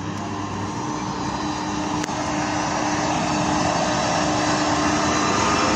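ČD class 163 electric locomotive hauling a passenger train along the platform: a steady humming tone over wheel and rail noise, growing louder as it approaches, with a single click about two seconds in.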